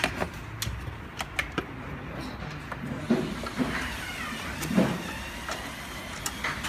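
Scattered light clicks and knocks of a printer's metal parts being handled, with a short scraping rub near the middle, as the steel rod is freed from the frame.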